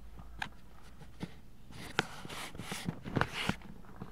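Two dogs play-wrestling on a couch: scattered soft knocks and clicks with short bursts of scuffling noise, busiest in the second half.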